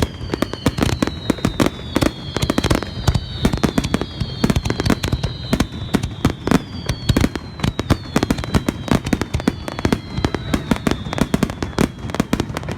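Fireworks display in a rapid barrage: a dense, unbroken run of bangs and crackling reports, with several high whistles from whistling shells overlapping, each sliding slowly down in pitch.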